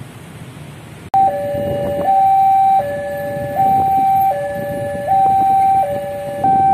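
Electronic two-tone railway level-crossing warning alarm, alternating evenly between a higher and a lower tone, each held about three-quarters of a second, warning of an approaching train. It starts suddenly about a second in, over a low background rumble.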